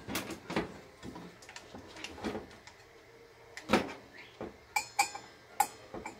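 Irregular clicks and light knocks of a Ryobi 18V brushless cordless circular saw being handled, its plastic and metal parts tapping and clicking as it is moved by hand, with the motor off. The sharpest knock comes a little past halfway.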